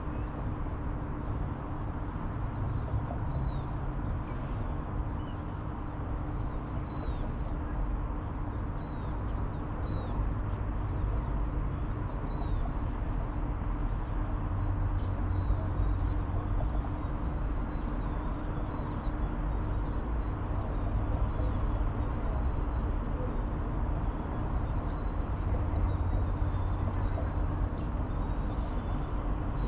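Outdoor riverside ambience: a steady low rumble with a faint constant hum, and small birds giving short, high chirps every second or two.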